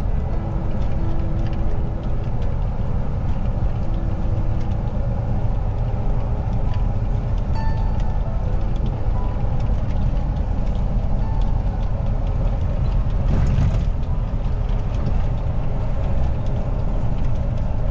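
Steady engine and road rumble inside the cab of a tractor-trailer cruising at highway speed, with a brief swell of noise about thirteen seconds in.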